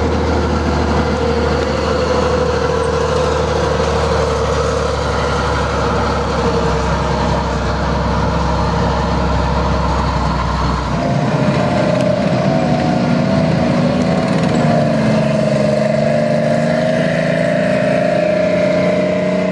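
General Motors 6046 tank powerplant, twin Detroit Diesel 6-71 two-stroke diesels, running steadily with a whine over the engine noise. About eleven seconds in the sound cuts to another recording of the tank running, with a higher whine.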